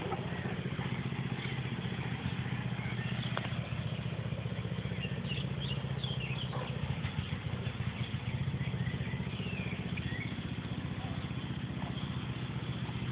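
A motor running with a steady low drone, with a few short high chirps over it.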